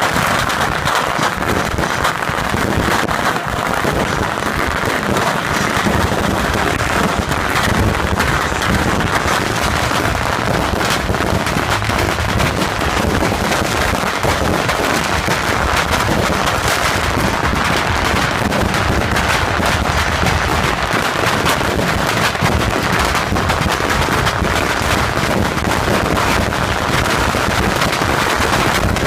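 Beehive rocket launcher firing: thousands of bottle rockets and firecrackers going off in an unbroken, dense crackle of countless small bangs and whooshes.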